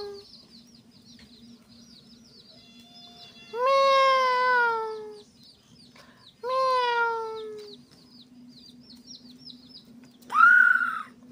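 An animal calling three times: two long cries that fall in pitch, about a second and a half each, starting about three and a half and six and a half seconds in, then a shorter, higher call near the end. Faint high bird chirping runs underneath.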